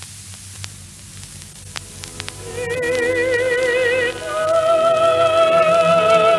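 Opera recording played from a 1950s acetate disc: first about two and a half seconds of surface crackle and clicks, then a singer comes in on a long held note with vibrato and moves up to a higher held note about four seconds in.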